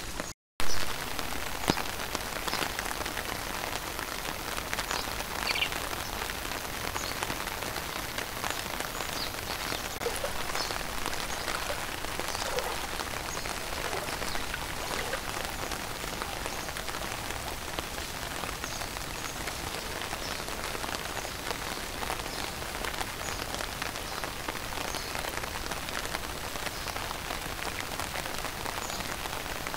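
Steady rain falling on floodwater and hard surfaces, a dense patter of drops at an even level. The sound cuts out briefly about half a second in.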